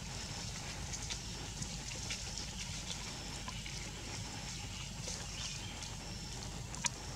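Outdoor ambience over a steady low hum: faint short high chirps recurring about once a second, and scattered light clicks, one sharper click near the end.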